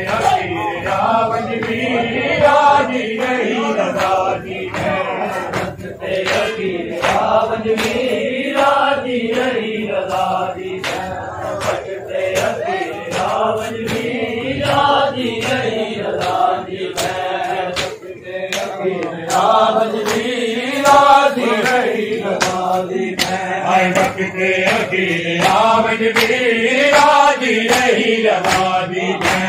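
Crowd of men chanting a noha (mourning lament) together in rising and falling phrases, with sharp chest-beating slaps of matam in a steady rhythm.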